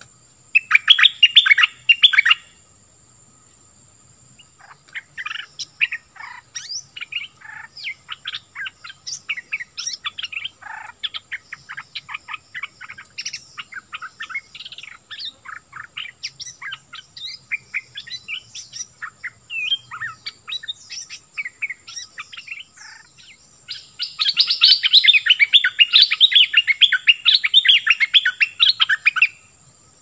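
A caged bulbul singing: a short loud burst of quick notes about a second in, then a long run of quick, separate phrases, and near the end several seconds of dense, rapid, loud song.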